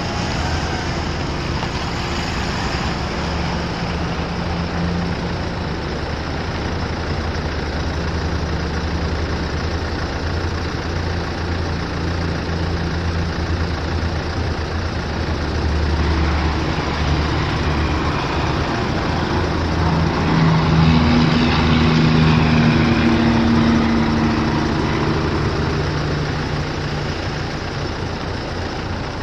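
1989 Ford F150's 4.9-litre inline-six engine running steadily, then brought up to a higher speed from about halfway through and held there for several seconds before easing back down near the end.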